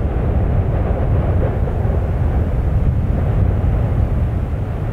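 Steady low rumbling roar of the erupting Fagradalsfjall volcano crater, without separate bangs or bursts.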